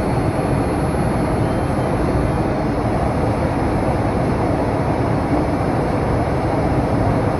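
Steady cabin noise of a Boeing 787-9 Dreamliner in flight, heard from inside at a window seat: an even rush of airflow and engine sound, heaviest in the low range, with no change throughout.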